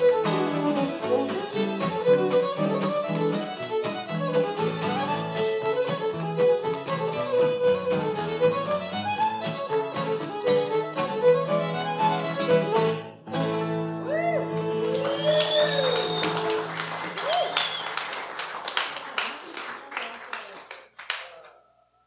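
Fiddle and acoustic guitar playing an instrumental tune together, the guitar strummed under the fiddle's melody. A brief break comes about 13 seconds in, then a closing phrase with sliding fiddle notes before the music dies away near the end.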